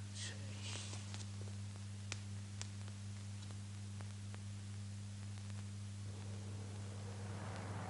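Low steady hum with hiss and scattered faint clicks from an old film soundtrack, no clear action sound. A soft rushing noise comes in near the end.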